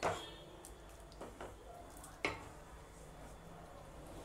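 Wooden spatula stirring thick green gram curry in a metal pot. A few faint knocks of the spatula against the pot, the loudest right at the start and another about two seconds in.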